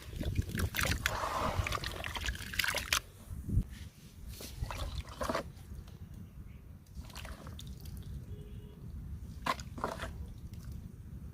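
Sand-cement and sawdust crumbles wetted in water: a busy stretch of gritty sloshing and crumbling in the first three seconds, then scattered drips and small splashes.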